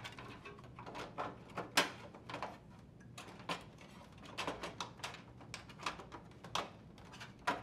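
Light clicks and knocks of plastic on plastic as a dryer's drum support is aligned and slid into the front panel by hand, with sharper clicks about two seconds in and near the end.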